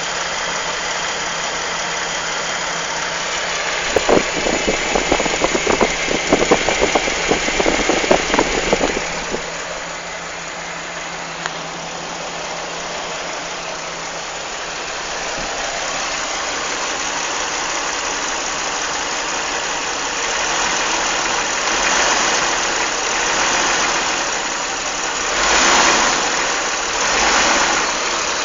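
Jeep Wrangler TJ engine running, with a run of sharp, irregular knocks or rattles from about four to nine seconds in, the noise the owner is recording. Near the end the engine sound swells and falls back several times.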